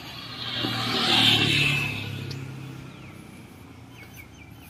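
A motor scooter passing close by: its small engine and tyre noise swell to a peak about a second in, then fade away.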